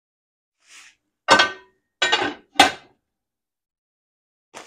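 A metal pot lid knocks and clanks against a frying pan three times as it is put on to cover the pan. A faint rustle comes just before.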